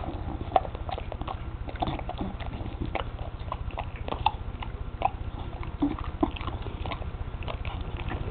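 A bulldog crunching and chewing a carrot: irregular crisp crunches and wet chewing, over a steady low rumble.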